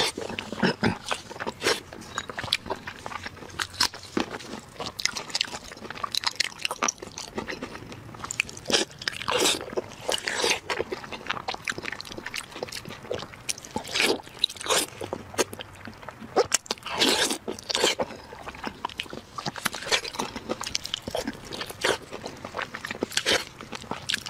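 Mouth sounds of biting and chewing a large chunk of sauce-covered braised meat, in irregular bites and chews with louder clusters of bites about 9, 14 and 17 seconds in.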